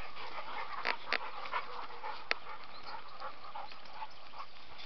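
A pack of dogs moving about on a dirt bush track, with a few sharp clicks about one and two seconds in over a steady high background hiss.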